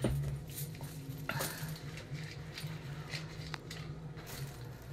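Faint light clicks and rustles of jewelry being handled, over a steady low hum.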